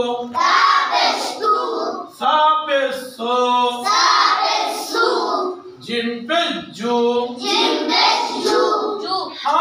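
Children chanting in unison in a sing-song recitation, in short repeated phrases: the class reciting Arabic letters read with the pesh (damma) vowel.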